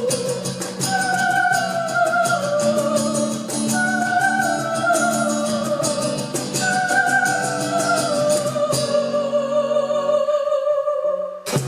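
Live pop-rock music in a wordless passage: a sustained melody line falling in repeated phrases about every three seconds over a steady drum beat with fast hi-hat ticks. The beat drops out about nine seconds in, leaving a held note, and a sharp hit comes near the end.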